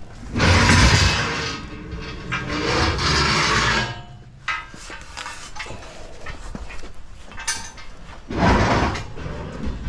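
Metal scaffold parts dragged out across a trailer bed: a loud scraping slide lasting about three and a half seconds, a few knocks, then a second loud clatter near the end.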